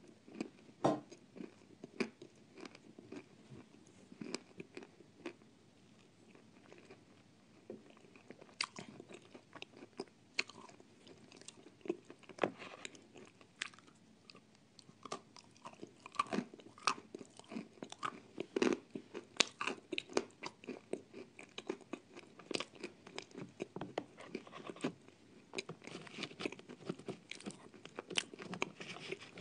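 Close-miked eating: hard, dry clay chunks being bitten and crunched between the teeth, an uneven run of sharp crunches with chewing in between. The crunches thin out for a few seconds twice and come thickest in the second half.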